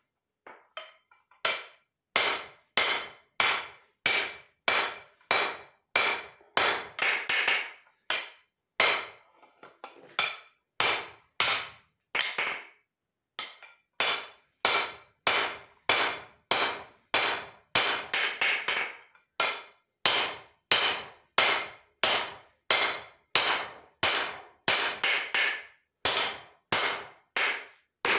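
A hand hammer striking leaf-spring steel on an anvil while forging, about two blows a second, each with a short metallic ring. Short pauses come near the start and twice around the middle.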